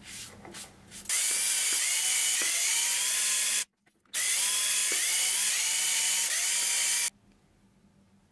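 A countersink cutter spinning in a milling machine chamfers the bolt holes of a hand-held aluminium part, chattering with short, repeated rising squeals over a low steady hum. It starts abruptly about a second in, breaks off briefly just under four seconds in, and stops about seven seconds in.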